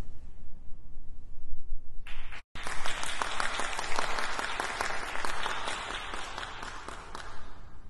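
Audience applauding. The clapping starts about two seconds in, breaks off for an instant, then dies away near the end.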